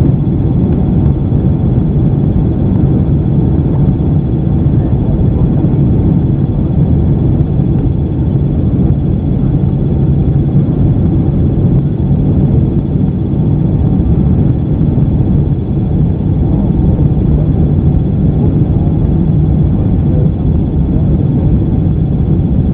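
Steady cabin noise inside a Boeing 767-300 on approach: a loud, even, low rumble of the jet engines and airflow over the fuselage, with a steady hum underneath.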